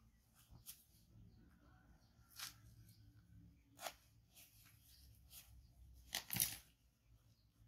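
Faint rustling and crinkling of a disposable diaper's plastic being unfolded by hand, in short irregular crackles, with the loudest crackle about six seconds in.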